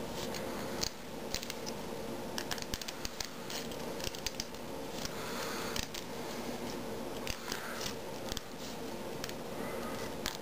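Scissors snipping a small disc out of a stainless steel hose-filter screen: a run of short, irregular snips and clicks, coming in clusters from about a second in.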